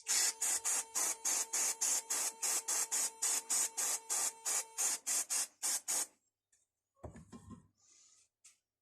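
Rapid back-and-forth scraping strokes of a hand tool worked on the metal wrench, about four strokes a second, stopping after about six seconds; a short low knock follows about a second later.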